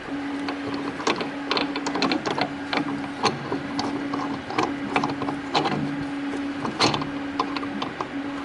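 Metal build platform of an Anycubic Photon S resin printer being fitted onto its Z-axis arm: repeated clicks, knocks and rattles of handled metal parts, over a steady low hum that breaks off about once a second.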